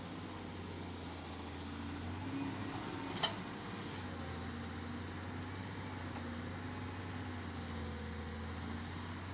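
An engine running steadily with a low, even drone, and a single sharp click about three seconds in.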